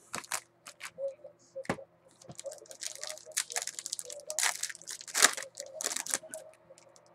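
Wrapper of a 2014 Topps Finest football card pack crinkling and tearing as it is opened by hand, in a run of irregular crackles that is loudest about five seconds in. A few light clicks come first as the packs are handled.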